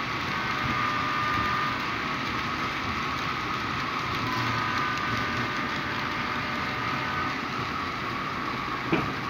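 HO-scale model trains running along the layout track: a steady rolling and running noise with a faint whine in it, and a single sharp click near the end.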